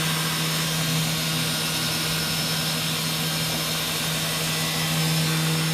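Fadal 4020HT vertical machining center's high-torque spindle running steadily at its maximum 10,000 RPM: a constant hum under a dense high hiss.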